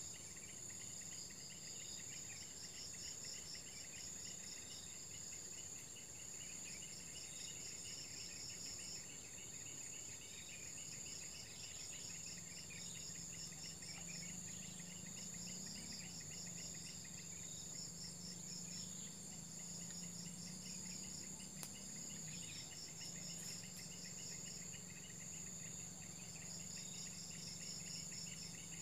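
A chorus of insects in the vegetation: a steady high-pitched whine with rapid pulsing trills and fast, even chirping over it. A faint low hum joins about twelve seconds in.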